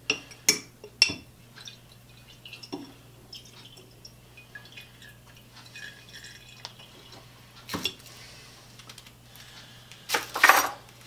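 A glass jar and metal tongs clinking sharply three times in the first second, followed by scattered light knocks as the jar of boiled linseed oil is handled. About ten seconds in comes a louder scraping rub lasting about a second.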